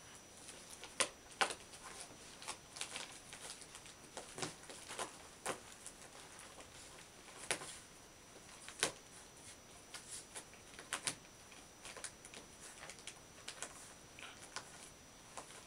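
Shiba Inu puppies scuffling in play: irregular light clicks and scrabbling from paws and claws and from the plush toy being pushed about.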